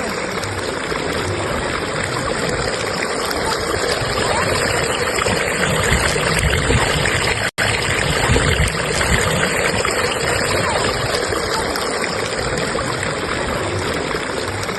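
Steady rush and babble of a fast-flowing stream current. The sound cuts out completely for an instant about halfway through.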